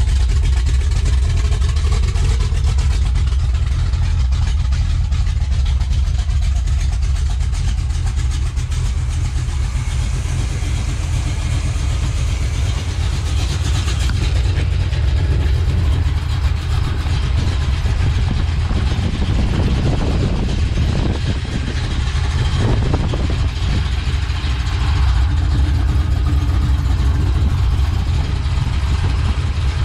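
Pontiac 455 V8 with a Crower cam and 3-inch exhaust, running at a steady idle.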